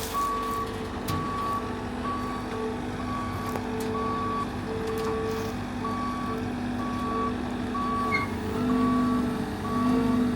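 Bobcat T76 compact track loader reversing: its backup alarm beeps steadily about once a second over the running diesel engine.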